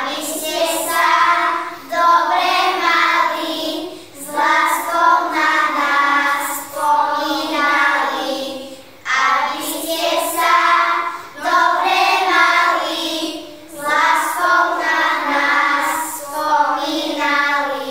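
A group of young children singing a song together, in phrases with short breaths between them.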